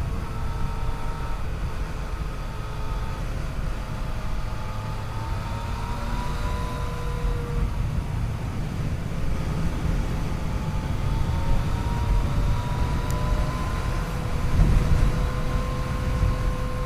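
Yamaha FJ-09's 847 cc inline three-cylinder engine running under way, its pitch slowly rising and falling as the bike speeds up and eases off, over a heavy low rush of wind noise.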